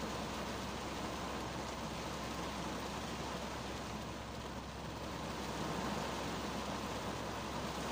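Steady rain on the roof and windscreen of a 2010 Kia Cerato, heard from inside the cabin as an even hiss of drops.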